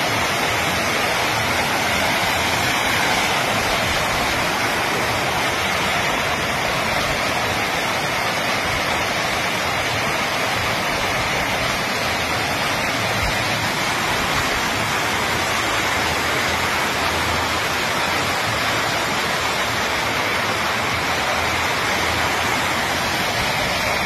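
Muddy flash-flood water rushing fast down a street: a steady, loud rush of turbulent water.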